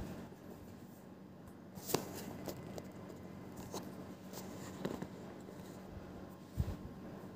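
Quiet room tone with a steady air-conditioner hum, broken by a few small clicks and rustles and a soft low thump about six and a half seconds in.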